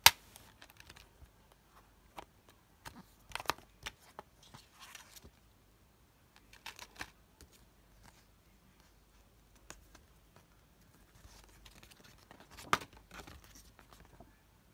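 Handling of a plastic Blu-ray case and its paper booklet: a sharp plastic click right at the start, then scattered clicks and short bursts of paper rustling as the booklet is taken out and opened.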